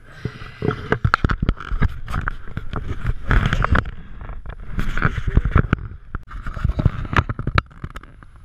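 Water sloshing and slapping against a plastic kayak hull, with many irregular knocks and splashes.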